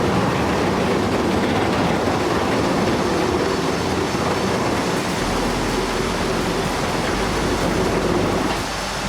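Steady, loud mechanical rumble from heavy vehicles at work, easing slightly near the end.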